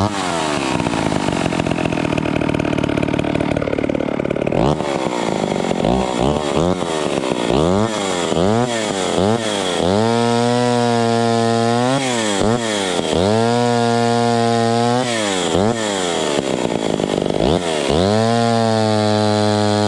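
Vintage PM Canadien 340 two-stroke chainsaw with a custom exhaust, running and being revved. After a few seconds of steady running it is blipped several times, then held at high revs for a couple of seconds three times, dropping back between runs.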